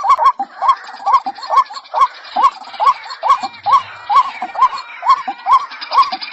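White-breasted waterhen (ruak-ruak) calling: a fast, even run of short, hooked notes, about three a second.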